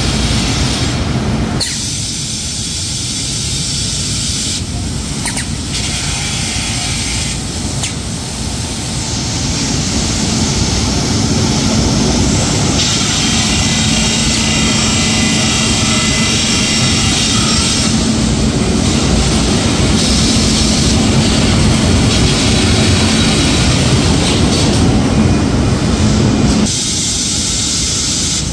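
Glass edge seaming machine running, its motor-driven diamond wheels wet-grinding the upper and lower edges of a glass sheet at high speed: a steady, loud hissing machine noise. A low hum sets in about nine seconds in and drops away a couple of seconds before the end.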